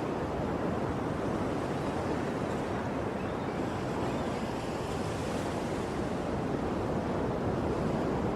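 Ocean surf: waves washing ashore as a steady rushing noise, swelling a little in the middle.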